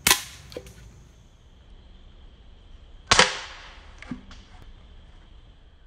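A BB rifle fired twice at a piece of chalk, about three seconds apart: each shot is a sharp crack followed by a couple of fainter clicks.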